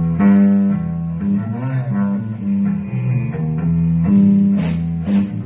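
Guitars playing a loose jam: plucked notes that change about every half second over a strong bass line, with a couple of sharp strums near the end.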